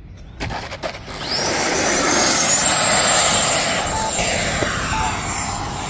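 The electric ducted fan of an FMS F-86 Sabre 80mm RC jet spools up: a loud rush with a whine that rises steeply, then settles into a high steady whine as the jet climbs out from a touch-and-go. The rush eases off toward the end, and short beeps sound about once a second from about four seconds in.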